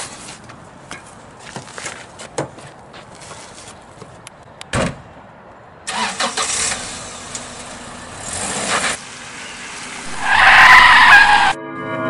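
A car rolling over a gravel driveway, its tyres crunching on the stones, then a loud squealing stop about ten seconds in. Before that come light scattered footfalls and a single thump.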